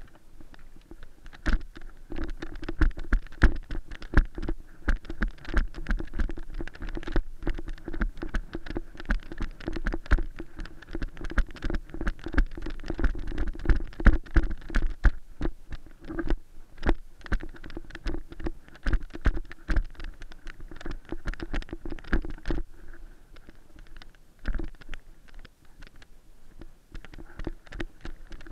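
Dense, irregular knocks, scrapes and rustles of a player moving through dry grass and brush, with the body-worn action camera being jostled. The knocking thins out about 22 seconds in.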